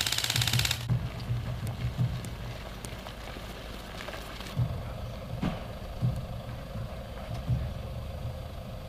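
A fast, evenly repeating burst of full-auto airsoft fire that stops about a second in, followed by a low rumble with irregular dull thumps.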